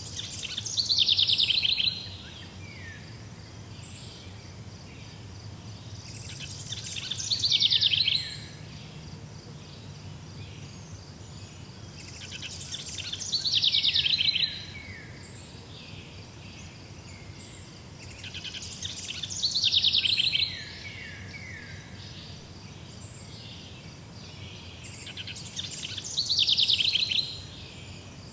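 A songbird repeating the same song phrase five times, about every six seconds; each phrase lasts about two seconds, builds in loudness and ends in a few quick falling notes. A faint steady insect-like trill and a low rumble run underneath.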